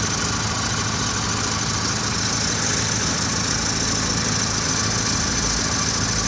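Steady mechanical hum, like an engine idling, running without a break.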